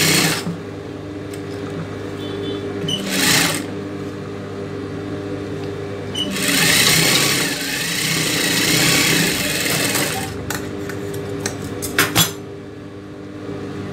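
Industrial sewing machine stitching in runs: a short burst at the start, another about three seconds in, and a longer run of about four seconds from six seconds in, over a steady motor hum. A few sharp clicks come near the end.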